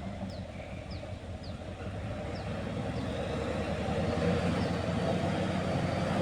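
Heavy diesel engine running, getting steadily louder.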